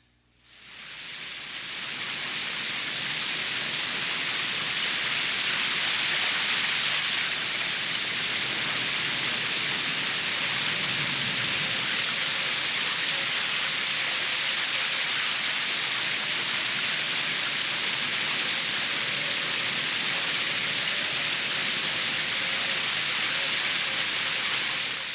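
A steady hiss of noise like falling rain, fading in over the first second or two and fading out at the end, with a faint steady tone beneath it.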